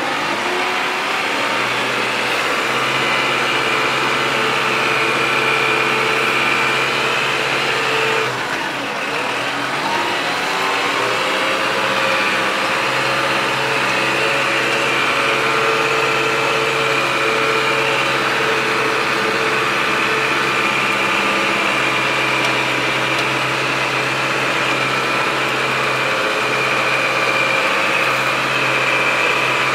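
Tractor engine running steadily, heard from inside the cab; about eight seconds in the revs drop briefly and then climb back up.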